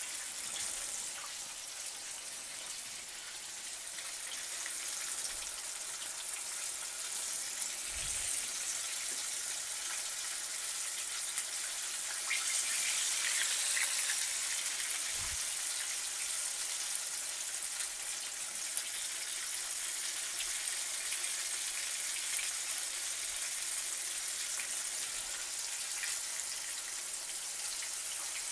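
Chicken thigh pieces coated in potato starch and flour deep-frying in hot oil, a steady, even sizzling and crackling of bubbling oil. It is the first fry at about 170°C, while the chicken is still soft and underdone inside and the oil is still bubbling vigorously.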